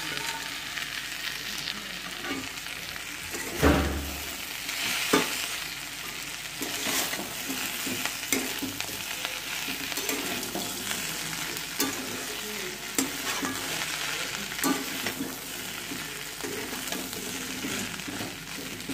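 Fried cauliflower florets tossed with onions and capsicum in a hot metal pan: a steel spatula scrapes and clicks against the pan over a steady sizzle. One heavier knock about four seconds in.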